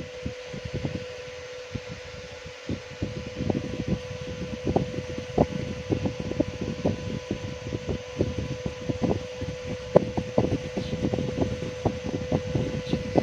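A steady mechanical hum with many small, irregular clicks and taps of hand tools working on a phone's charging jack while paste is applied to it.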